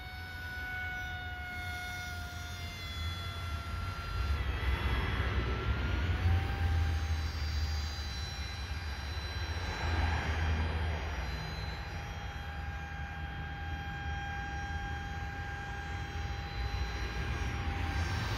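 RC paramotor's small propeller motor whining, its pitch dipping and shifting with the throttle, then holding steady. Wind rumbles on the microphone underneath, gusting louder a few times.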